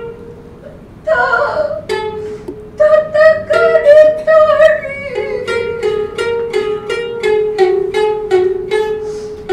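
Futozao shamisen, the heavy-necked shamisen of joruri accompaniment, plucked in a quick, steady run of ringing notes from about two seconds in, just after a short vocal call.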